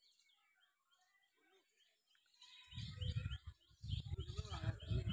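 Birds chirping, faint at first. From about three seconds in, a louder, irregular low rumble in gusts joins them.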